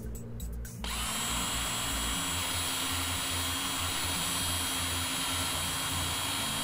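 Cordless drill starting about a second in and running steadily with a high whine, its 5/32 bit drilling into the differential carrier to remove the factory-staked burr that locks the spider-gear shaft pin in place.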